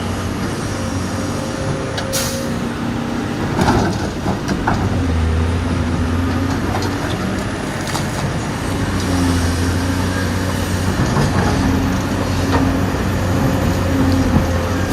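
Dubbed sound of a real diesel excavator engine running under working load, a steady low drone that grows louder about five seconds in. A short hiss comes about two seconds in, and a few knocks are scattered through it.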